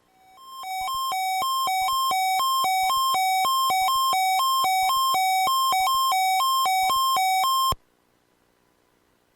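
Sangean weather alert radio's electronic alarm set off by the NOAA Weather Radio weekly test: a two-pitch beep alternating high and low, about two cycles a second, fading in over the first second and cutting off sharply near the end.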